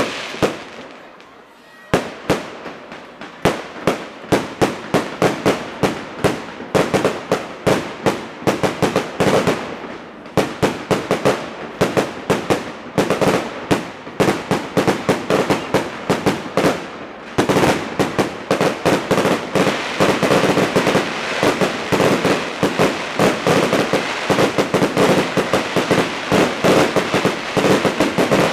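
Fireworks display going off in rapid sharp bangs, several a second, after a brief lull about a second in. From about two-thirds of the way through, the reports run together into a dense, near-continuous barrage.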